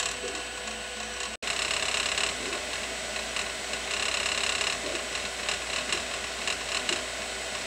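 Anycubic 3D printer printing: its stepper motors whine in short, changing tones as the print head darts back and forth, over a steady fan whir.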